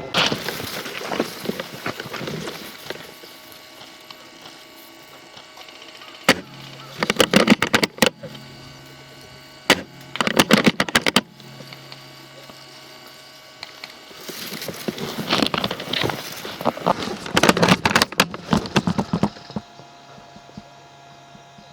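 Bursts of rustling and clattering clicks, with two sharp single clicks about six and ten seconds in, over a faint steady hum.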